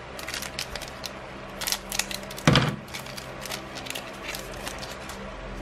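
Foil wrapper of a Magic: The Gathering Crimson Vow set booster pack crinkling and crackling in the hands as it is handled, with one dull knock about two and a half seconds in.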